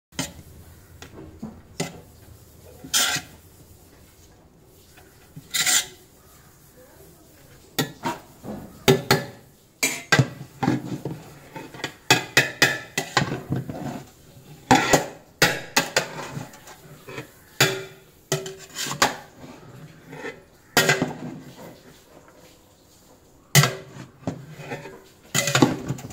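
A metal utensil scraping and clanking against a large aluminium pot as a big batch of chicken dum biryani rice is turned over and mixed, in irregular knocks, sometimes several a second.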